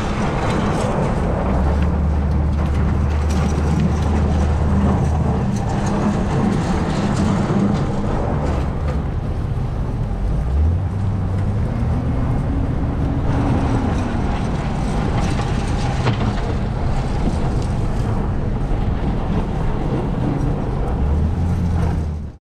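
Pickup truck driving on snowy roads: steady engine hum with road noise. The engine note shifts in pitch, rising and falling again around the middle as it accelerates.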